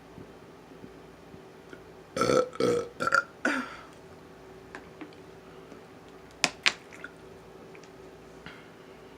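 A person burping: four short, loud burps in quick succession about two seconds in. Two sharp clicks follow a few seconds later.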